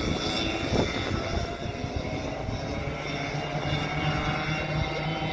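Engines of several dirt-track racing karts running together at speed, heard from a distance as the pack goes around the track.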